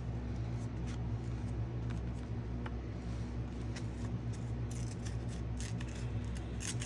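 Soft rustling and light scraping of paper being handled, coming as a few short rustles in the second half, over a steady low hum.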